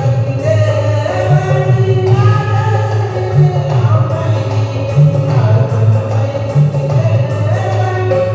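Hindu devotional bhajan to Hanuman: voices singing over a steady instrumental accompaniment.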